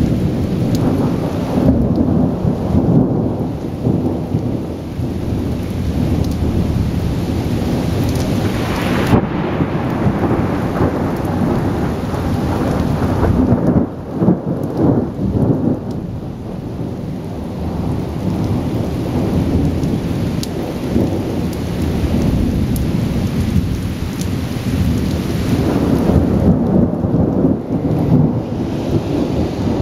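Thunderstorm: loud rolling thunder rumbling on and off, swelling and fading over steady rain.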